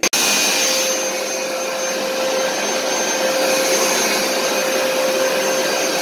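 Hoover SmartWash upright carpet cleaner switching on abruptly and running steadily, its motor giving an even, loud drone with a constant whine.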